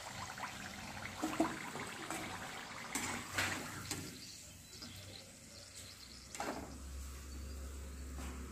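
Hot oil sizzling in a kadai as fried samosas are lifted out on a slotted steel spatula, with a few light clinks of the spatula against the pan. A low hum comes in near the end.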